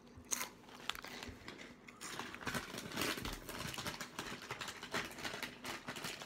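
An open plastic snack bag of cheese puffs crinkling as it is handled and set down, mixed with the crunching of cheese puffs being chewed; an irregular crackle that grows denser about two seconds in.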